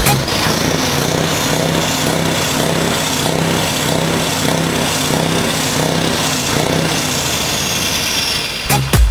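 Heavy truck's diesel engine idling steadily, heard close to the side of the cab.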